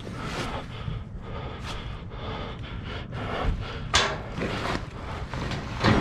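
Close scuffing and scraping of a gloved hand and clothing on gritty dirt and metal as a person crawls through a tight space, with a sharper scrape or bump about four seconds in and another near the end.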